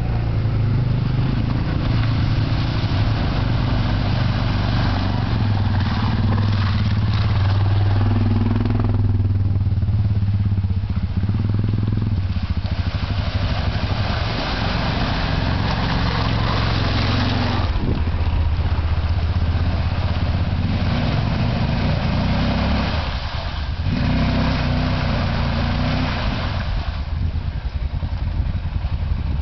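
Can-Am quad's engine running hard through mud, the throttle opening and easing off several times so the engine note rises and falls.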